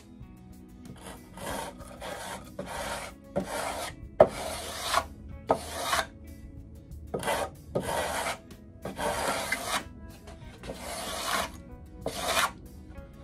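Balsa wood being hand-sanded with a sanding block: quick back-and-forth rasping strokes, about one or two a second, in runs separated by short pauses.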